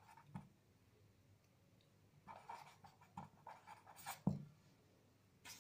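Ballpoint pen writing on paper: faint scratching strokes, in a run from about two seconds in to just past four seconds.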